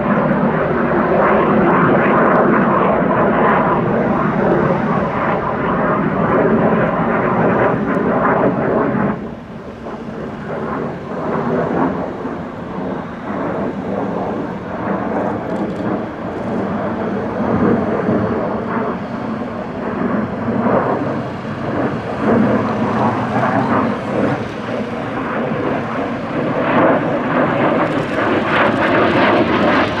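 MiG-21UM jet's single Tumansky R-11 turbojet engine, a loud rough jet noise as the aircraft flies overhead. It drops sharply about nine seconds in, then rises and falls unevenly, building again near the end.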